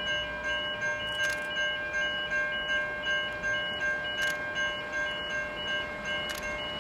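Railway level crossing warning bell ringing steadily at about two strokes a second, its ringing tones repeating evenly while the train approaches.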